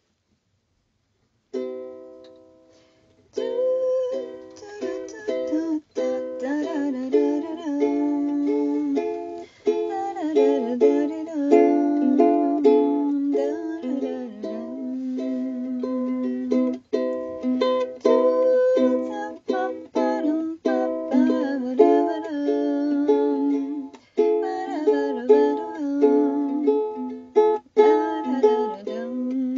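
Background music laid over the video. It starts after a second or so of silence and plays without a break from about three seconds in.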